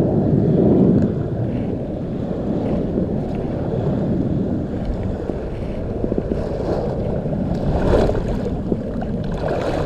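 Wind rumbling on the microphone over the wash of surf on the beach, with a couple of short knocks near the end.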